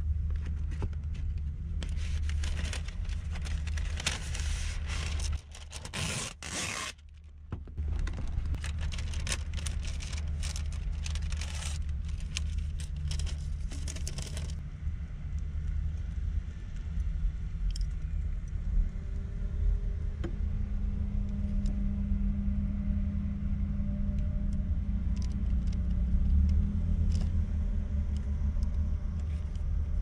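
Plastic cling film crinkling and crackling as it is handled, for about twelve seconds, over a steady low rumble. Then the crinkling stops, leaving the rumble with a few light clicks and taps.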